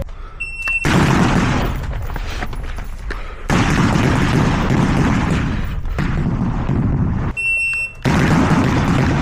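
Rifle fire on a shooting range in loud, dense stretches. Twice the noise drops away briefly for a short, high, steady electronic beep, and the firing noise resumes right after it.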